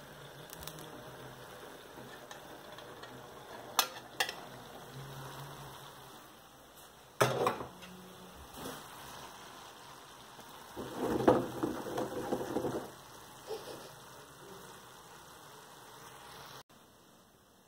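Broccoli stew frying in a pan, a steady low sizzle, with kitchenware clinking and knocking over it: a few light clicks, one sharp knock about seven seconds in, and a clatter of dishes and cutlery around eleven to twelve seconds. The sizzle cuts off suddenly near the end.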